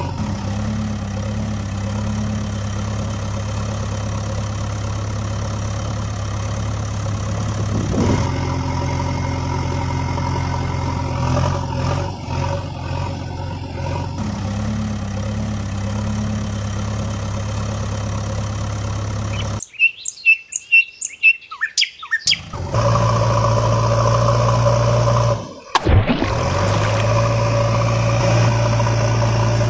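A steady, loud engine drone that changes pitch and tone several times. About two-thirds of the way through it stops for a few seconds while a quick run of high chirps sounds, then it resumes.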